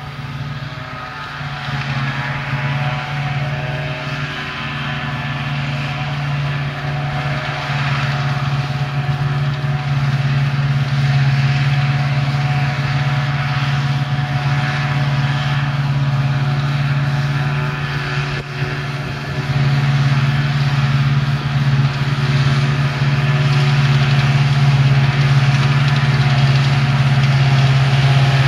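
Self-propelled forage harvester chopping rye, with a John Deere tractor pulling trailers alongside it. Their diesel engines drone steadily under load and grow louder as the machines come closer.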